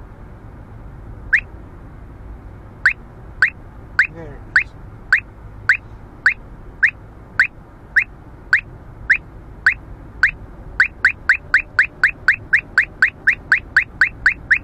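Uniden R3 radar detector sounding its Ka-band alert: short rising beeps, about two a second at first, quickening to about three a second near the end as the radar signal grows stronger. Low road noise inside the moving car runs underneath.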